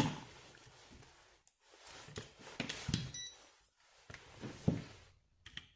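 Faint clicks and light knocks of handling on the workbench, with one short high beep about three seconds in.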